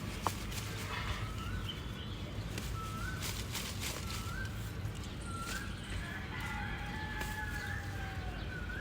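Outdoor birdsong: a small bird repeats a short rising chirp about once a second. A long, slowly falling call comes in about six seconds in, likely a distant rooster crowing, with a few brief rustles early on.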